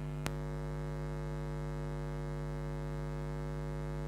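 Steady electrical hum with a stack of even overtones, unchanging throughout, with a single sharp click about a quarter second in.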